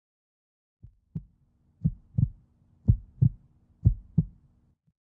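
Heartbeat sound effect: four double thumps, lub-dub, about one pair a second, the first pair fainter. A faint steady low hum runs under the beats and stops just before the end.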